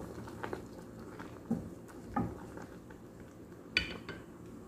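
Pot of egg noodles boiling, with a wooden spatula stirring them and knocking against the pan a few times; the sharpest knock comes near the end.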